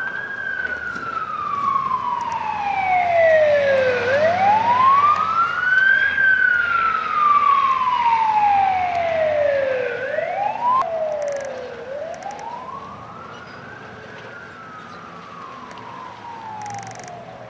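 Emergency vehicle siren in a slow wail, rising then falling over about six seconds per cycle and repeating. It grows louder toward the middle and fades after about ten seconds as the vehicle draws away.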